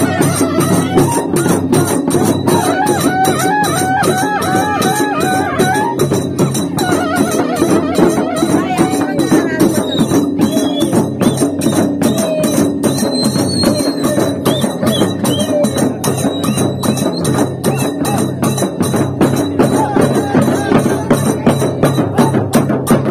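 Traditional folk procession music: drums beaten with sticks in a fast, dense, unbroken rhythm, with a wavering, ornamented melody over them.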